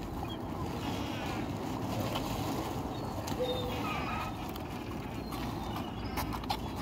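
Several dogs eating food off the ground, with scattered small clicks of chewing and gulping over a steady low background noise and a few faint, short high calls.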